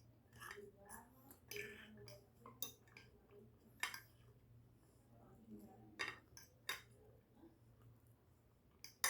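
Cutlery clinking and scraping against a plate in a few sharp strikes, with soft chewing and mouth sounds between them.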